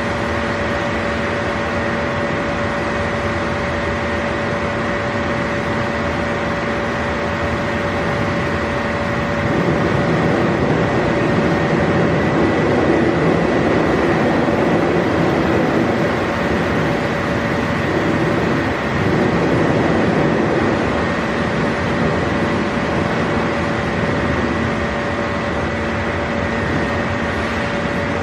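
Steady mechanical hum with a constant high whine, growing somewhat louder for several seconds in the middle.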